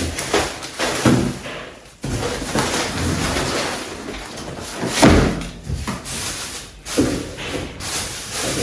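Plastic shopping bags rustling as groceries are unpacked and handled on a kitchen counter, with a heavy thud about five seconds in as a cardboard box of groceries is set down.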